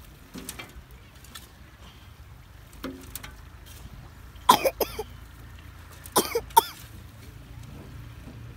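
A person coughing in two short bouts of two or three coughs each, the first about four and a half seconds in and the second about six seconds in.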